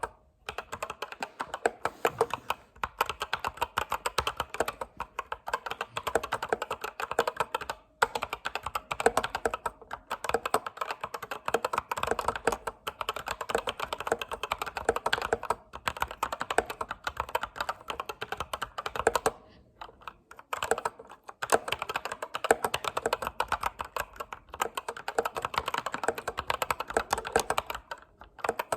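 Computer keyboard being typed on fast, a dense run of key clicks with a few brief pauses, the longest about two-thirds of the way in.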